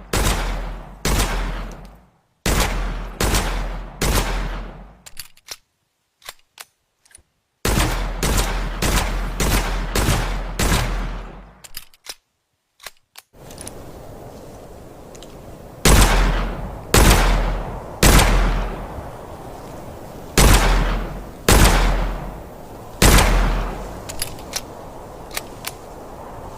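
Revolver gunshot sound effect: three volleys of about six shots each, every shot ringing off with a reverberant tail. Short clicks fall in the pauses between volleys, and a steady hiss lies under the last volley.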